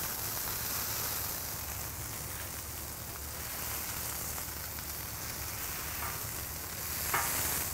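Two thin 80/20 ground beef patties sizzling steadily on a hot Blackstone steel griddle, just put on, while the edge of a steel spatula scores their tops, with a short tap near the end.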